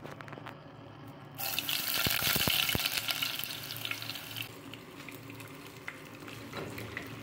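Hot oil sizzling and crackling in a cooking pot as chopped onion goes in, loudest for about three seconds starting a second and a half in, then weaker. Near the end, dry rice grains are poured into the pot.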